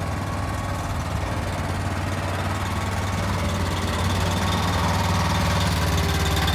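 Backhoe's diesel engine running steadily near idle while the hydraulics work the arm, growing a little louder about four seconds in.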